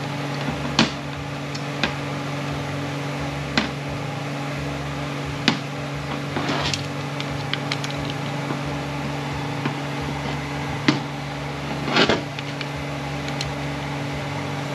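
Scattered sharp metallic clicks and taps as a 6T70 transmission valve body and its small valve parts are handled and set on a metal workbench, with the strongest knocks about a second in and near the end. A steady hum runs underneath.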